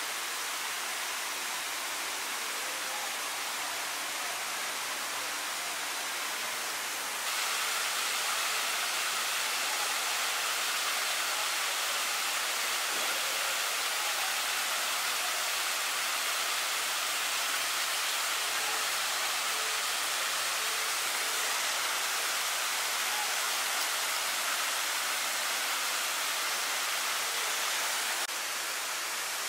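Steady rush of flowing water from a garden waterfall and stream. It gets a little louder about seven seconds in and drops back slightly near the end.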